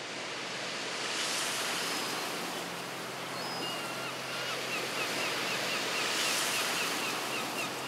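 Black Sea surf washing onto the shore, swelling twice as waves break. From about halfway, a run of short high chirps repeats about twice a second over the surf.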